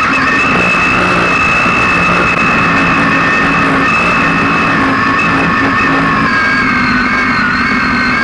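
A 2,600 hp mega truck's engine running hard at steady high revs, heard from inside the cab, with a steady high whine over the engine note; the pitch sags slightly near the end.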